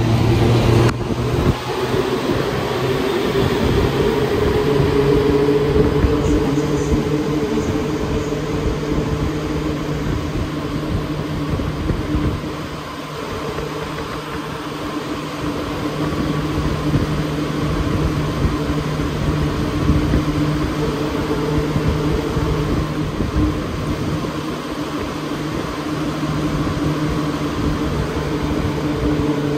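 Alstom NS-93 rubber-tyred metro train running between stations, heard from inside the car: a steady hum of several tones from the traction motors over continuous rolling noise.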